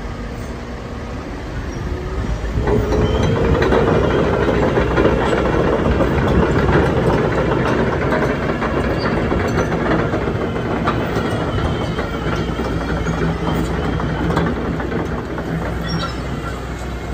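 Liebherr R936 crawler excavator running, its engine and hydraulics growing louder about two seconds in, with a steady whine and scattered metallic clanks.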